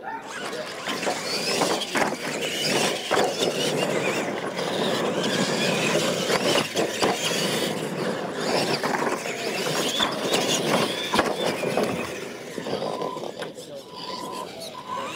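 Electric radio-controlled monster trucks racing over a dirt track, their motors and gearboxes whining in rising and falling pitch, with a few sharp knocks over the bumps. The noise eases off about twelve seconds in.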